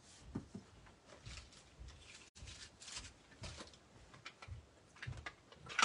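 Soft rustles and light taps of an embossing buddy, a powder-filled anti-static pouch, being wiped and patted over a narrow strip of cardstock to prepare it for heat embossing.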